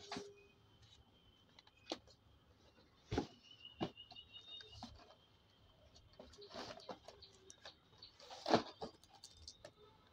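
Cardboard parcels being handled: scattered knocks and scrapes of cardboard, the loudest a little past eight seconds in. A bird chirps in the background, with a short rapid trill about three and a half seconds in.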